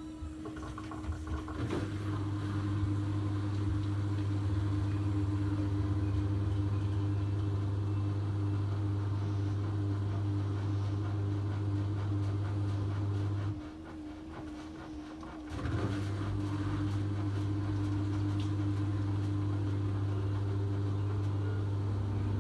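A steady mechanical hum, a low drone with a higher steady tone above it, that cuts out for about two seconds past the middle and then resumes. Near the end a pair of tones starts to rise.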